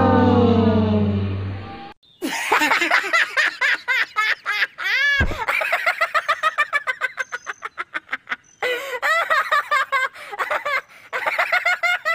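A descending brass 'wah-wah' fail sound effect ends about two seconds in. After a short gap, a high-pitched, rapid cackling laugh sound effect follows, with one brief break near the end.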